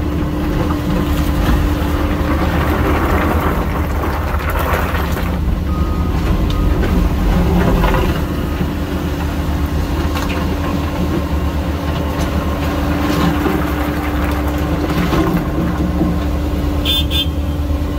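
Hyundai HX220AL excavator's diesel engine running steadily under hydraulic load, with a steady hum. Riprap stone scrapes and shifts, mostly in the first half.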